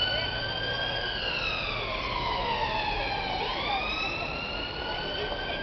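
Ambulance siren in wail mode, sweeping slowly in pitch: falling for about two seconds, then rising again about three and a half seconds in. Low traffic noise runs underneath.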